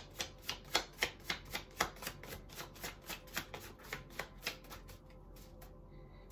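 A rapid series of light clicks or taps, about four a second, thinning out and stopping after about four and a half seconds.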